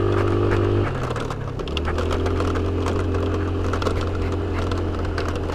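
Small scooter engine running steadily while riding a bumpy dirt track. Its pitch shifts over the first second and a half, then holds, with frequent rattles and clicks from the rough ride.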